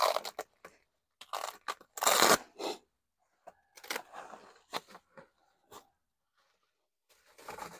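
Plastic bubble wrap crinkling and crackling in irregular bursts as it is pulled open by hand, with strips of tape peeled off it. The loudest crackles come in the first two and a half seconds, then softer rustles, and another burst near the end.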